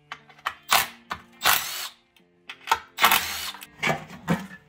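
Screwdriver prying and scraping at the sealed seam of a 2JZ-GTE oil pan to break it free of the block. It comes as several short, harsh scrapes, each half a second or less.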